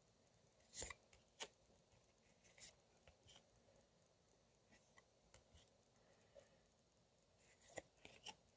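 Faint, scattered clicks and taps of stiff photocards being handled and shuffled in the hands, with the two loudest taps a little under a second and about a second and a half in, and a few more near the end.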